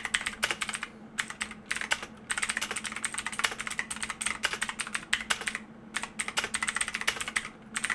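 Fast typing on a Pictek tenkeyless mechanical keyboard with clicky blue-style switches: dense runs of sharp key clicks broken by a few short pauses.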